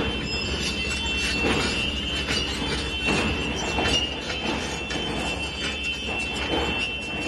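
Heavy diesel construction machinery running with a steady low rumble, scattered clanks and knocks, and a thin steady high-pitched tone over it.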